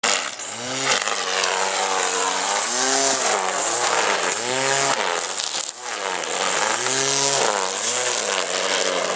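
Corded electric string trimmer cutting grass, its motor whine rising and falling in pitch every second or two.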